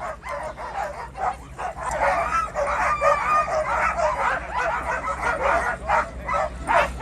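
A crowd of sled dogs barking and yipping at once in rapid, overlapping calls, growing denser and louder about two seconds in: the eager racket of teams waiting to start a race.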